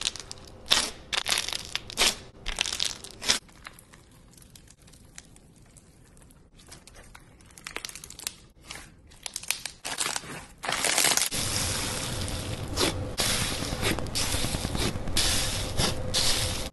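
Hands pressing and squeezing textured slime, making crunchy crackling and popping. There are loud clusters of crackles for the first few seconds, then scattered quieter crackles, then a dense, continuous crackle over the last five seconds.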